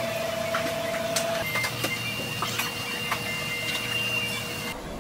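Hair-styling tools working on hair: a steady mechanical whir with a few held whining tones, and scattered light clicks and taps throughout.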